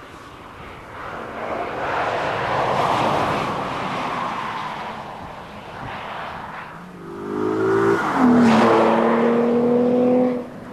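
Mercedes C350's V6 driven hard: a swell of road and wind rush, then the engine revs up, rising in pitch about seven seconds in and holding a loud, steady high note before cutting off suddenly.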